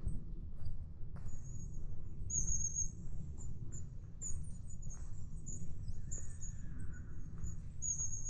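Small woodland birds giving many short, very high, thin calls, over the walker's footsteps on a forest track at about one step a second.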